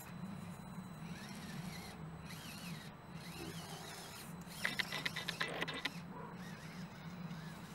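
Small 130-size brushed electric motor and geared two-speed drivetrain of a 1/18 shaft-drive RC crawler (FMS FCX24 running gear) humming steadily as it crawls slowly up a brick step. A burst of rapid clicking and rattling about five seconds in, as the crawler tips over onto the top of the step.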